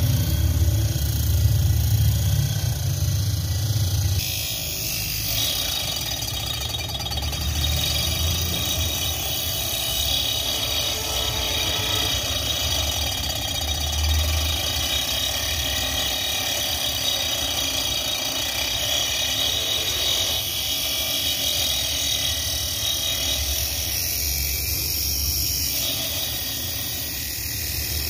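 Small homemade DC-motor saw running with its blade cutting into a round wooden rod as the rod is turned against it: a steady motor whine with the rasp of the blade in the wood. It is louder, with a low rumble, for the first four seconds or so, then runs evenly.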